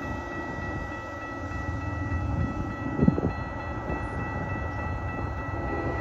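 Norfolk Southern intermodal freight train rolling past: a steady low rumble of wheels and cars, with a steady high ringing tone throughout and a single sharp clank about three seconds in.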